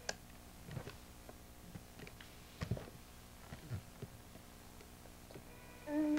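Faint scattered clicks and soft knocks of a baby mouthing and handling a small plastic toy. Near the end comes a short, held vocal call that dips in pitch as it ends.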